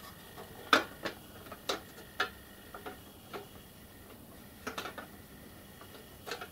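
Light, irregular clicks and taps of a sheet-metal locomotive cab roof being set onto the cab and adjusted by hand, metal touching metal, about eight times.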